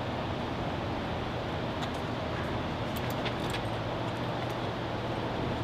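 Steady mechanical hum and rushing background noise, with a few faint light clicks about two to three and a half seconds in.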